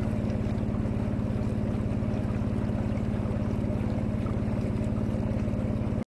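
Boat engine running steadily: a low, even hum with a fast, regular pulse that holds at one speed throughout.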